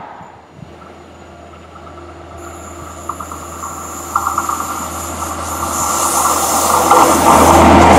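Yellow self-propelled rail maintenance vehicle approaching, its low drone growing steadily louder. About two and a half seconds in, a high whine from its wheels on the rails joins, with rapid light ticking.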